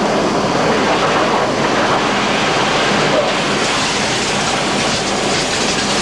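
Aerobath (air-bubble massage bathtub) in operation: its electric pump unit blows air into the bottom of the tub, and the water bubbles and churns with a steady, loud noise.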